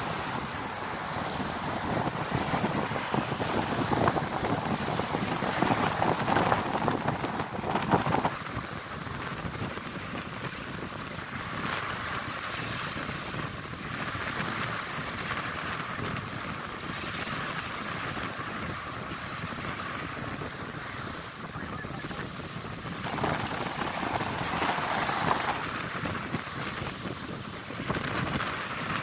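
Small surf washing up the sand, with wind buffeting the microphone. Louder through the first several seconds and again about three-quarters of the way through.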